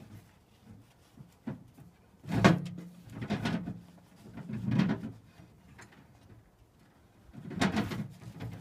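A few separate clunks and knocks a second or so apart, then a longer clatter near the end: things being handled and a door or lid worked off-camera.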